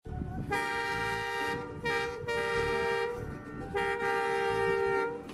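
Multi-tone locomotive air horn sounding three long blasts, each a steady chord.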